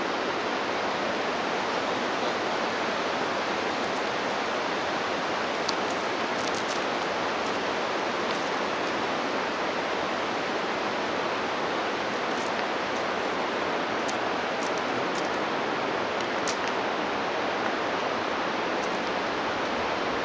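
Mountain river rushing, an even steady roar of water.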